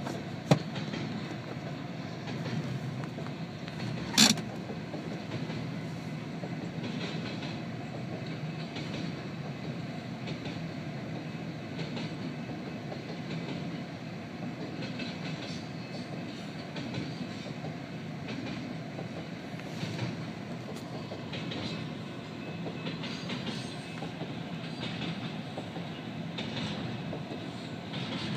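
Double-stack intermodal train's well cars rolling past, a steady rumble and clatter of steel wheels on the rails. A sharp bang about four seconds in.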